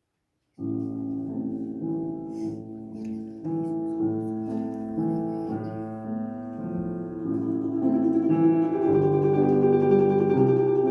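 Solo instrumental music starts about half a second in: a single player begins a classical-style piece of melody over chords, growing fuller near the end.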